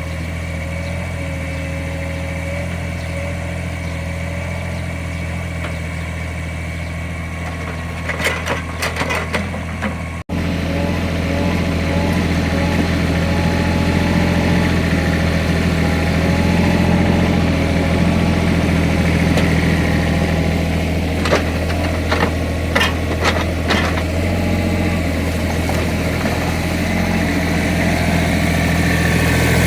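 Small Caterpillar excavator's diesel engine running steadily. Two clusters of sharp knocks come through, about a third of the way in and again past two-thirds.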